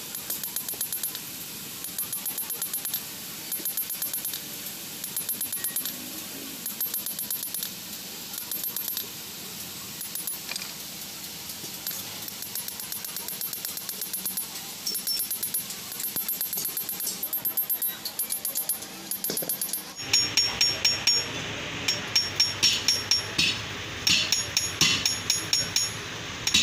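Hand hammer tapping a truck clutch plate's steel disc over a steel block, in quick runs of blows with a bright metallic ring. About two thirds of the way through the blows turn louder and heavier.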